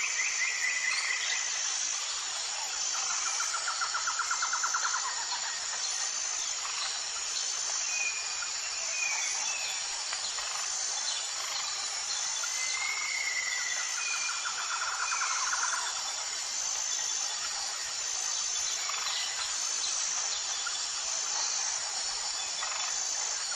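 Outdoor nature ambience: a steady, high-pitched insect drone throughout, with short bird trills twice (a few seconds in and just past the middle) and brief bird whistles in between.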